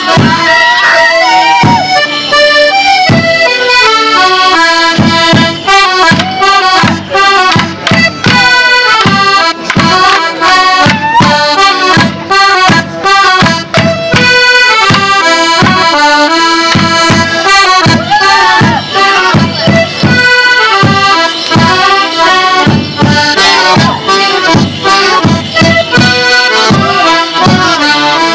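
Border Morris band playing a lively folk dance tune, its melody on accordions, over a steady beat of short low knocks.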